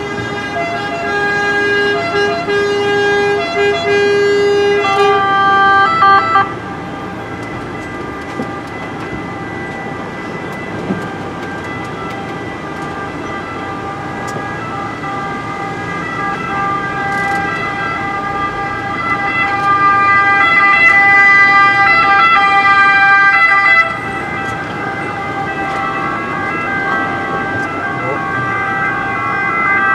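Several ambulance two-tone sirens sounding together in a convoy, each stepping back and forth between two fixed notes so that the pitches overlap. A nearer, louder siren stops suddenly about six seconds in, and another loud stretch from about 19 to 24 seconds also cuts off sharply.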